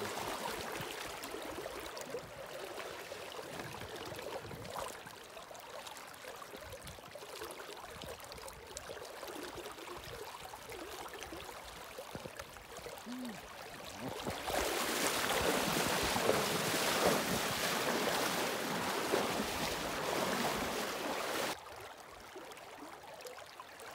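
Steady rush of a fast-flowing river, with wind buffeting the microphone. Past the middle the noise grows much louder for about seven seconds, then drops off suddenly.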